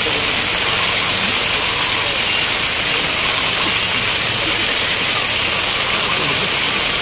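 Steady hiss of rain, even and unbroken, with faint voices murmuring underneath.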